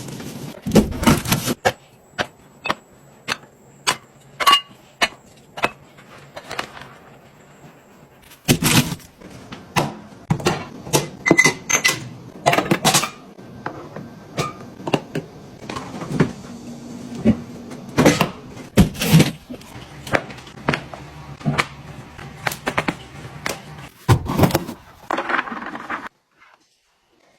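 Irregular series of sharp clicks and knocks, often one or two a second, over a low steady hum, with a brief gap near the end.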